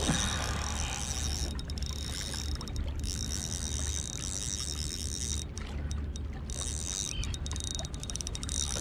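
Steady wind rumble on the microphone and sea washing on the rocks, with a continuous high whir from a small spinning reel being cranked in while a fish is played on ultralight line.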